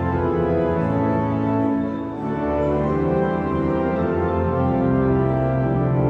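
Pipe organ playing a hymn in full, sustained chords that change every second or so, with a brief drop in volume about two seconds in.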